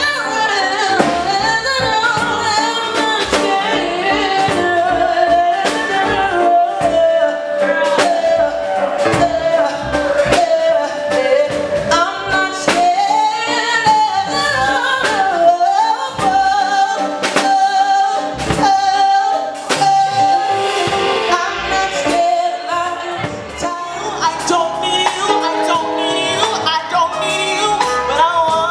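Music: a woman singing a melody over instrumental backing with drums, holding one long note about two-thirds of the way through.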